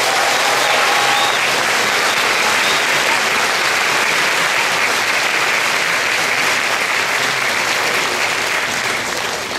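Audience applauding, a steady dense clapping that starts to fade near the end.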